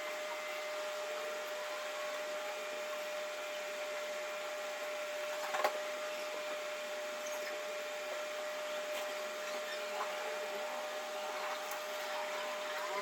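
A steady whirring hiss with a constant hum, as from a small motor, broken by a single brief click about five and a half seconds in.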